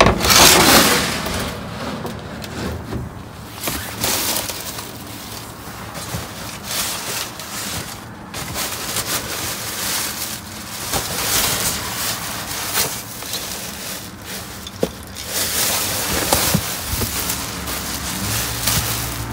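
Plastic trash bags and cardboard boxes rustling, crinkling and scraping as they are shifted around by hand in a dumpster, in irregular crackly bursts, loudest in the first second.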